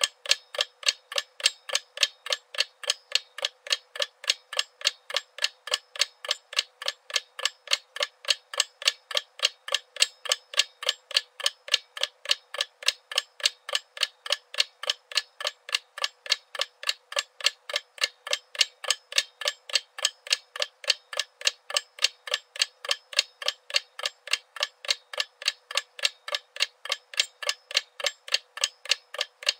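Seth Thomas mechanical mantel clock ticking: a quick, even run of sharp tick-tocks that holds steady throughout.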